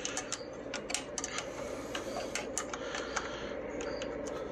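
Lister ST2 two-cylinder air-cooled diesel being turned over on its electric starter without firing, a steady whir with irregular light clicking. The injector lines are cracked open to bleed the air out, and fuel is squirting from the injectors.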